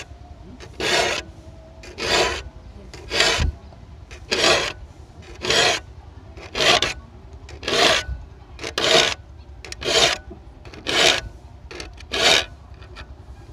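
Bahco saw file stroked across the teeth of a steel hand saw to sharpen them: about a dozen short file strokes, evenly paced at roughly one a second.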